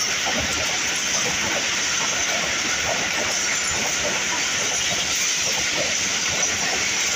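Pakistan Railways passenger coaches rolling past close by: a steady loud rush of wheels on the rails, with irregular knocks underneath.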